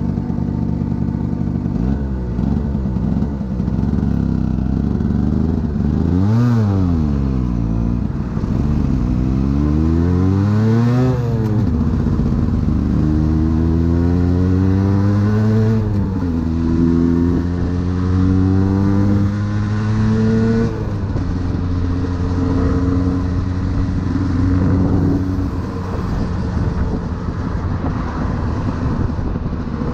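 Aprilia 50cc motorcycle engine running under way. Its pitch dips and climbs again early, peaks and falls back, then twice climbs steadily and drops sharply as it goes up through the gears, and holds steady in the last third.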